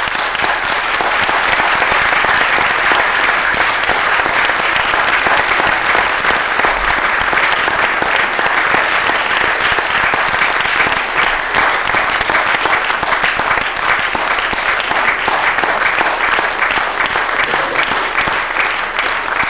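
Audience applauding, many people clapping at once in a dense, steady crackle.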